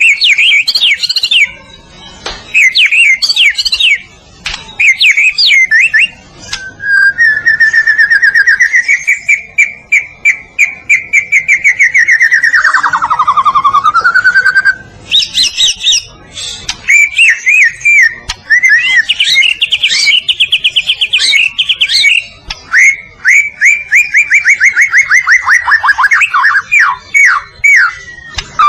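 White-rumped shama (murai batu, Medan type) singing loudly and without pause, its varied song made of quick chattering whistled phrases. About a third of the way in comes a long rapid trill held at one pitch, which swoops low and climbs back. Near the end there are fast runs of notes that slide downward.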